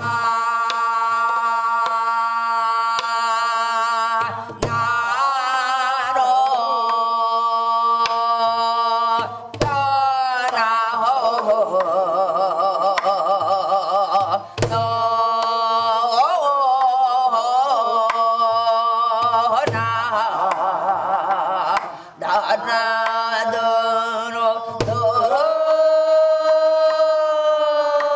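A woman singing Korean gueum, wordless vocal melody, with wide, heavy vibrato, held over steady drone tones and low drum strokes that mark the rhythmic cycle.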